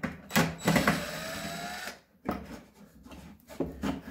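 Cordless DeWalt impact driver backing a screw out of a particleboard cabinet. It hammers for about a second and a half with a slowly rising motor whine, then stops and a few light knocks follow.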